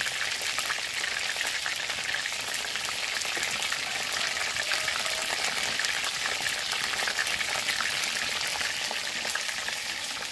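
Momos frying in hot oil: a steady sizzle thick with small crackles.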